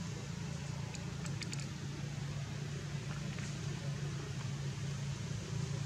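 A steady low mechanical hum, like an engine running, over a constant background hiss, with a few faint clicks about a second in.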